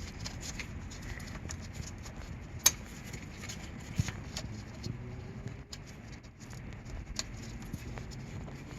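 A few light, scattered clicks and taps of small brake parts and tools being handled over a steady low background hum, with the sharpest clicks about three and four seconds in.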